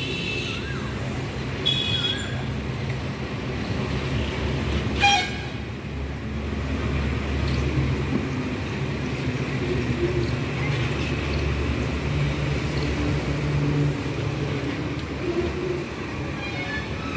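Steady low rumble of passing vehicles, with a few short horn toots, one about two seconds in and a sharper one about five seconds in.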